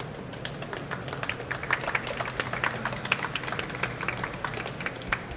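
Audience applauding: many irregular hand claps.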